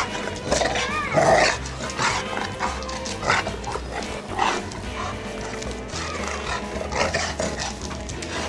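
A Bernese Mountain Dog and a Newfoundland puppy at play, with short dog vocalisations and scuffling, over background music with steady held tones.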